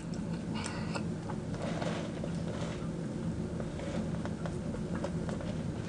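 Faint chewing and small wet mouth clicks of someone eating chicken wings, over a low steady hum.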